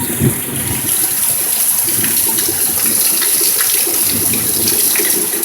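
Heavy rain pouring down, a steady, dense hiss of falling and splashing water.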